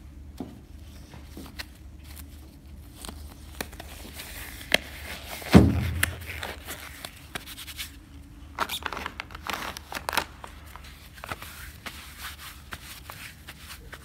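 Rustling and crinkling of plastic and nitrile gloves as gloved hands pull out and handle a wet wipe, with one loud thump about five and a half seconds in, over a steady low hum.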